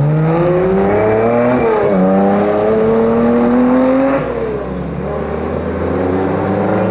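Rally car engine accelerating hard, its pitch climbing, dropping at a gearchange about two seconds in, then climbing again before falling away as it comes off the throttle a little after four seconds.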